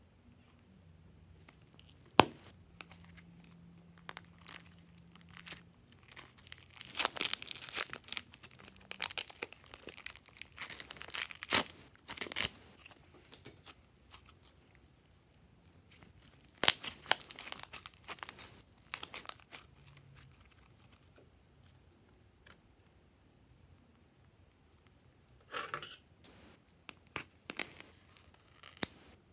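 Glossy slime crackling and squelching as it is squeezed by hand out of a plastic piping bag, the bag crinkling, in bursts with quieter pauses between and a sharp click about two seconds in. Near the end, scissors cut into another bag of slime.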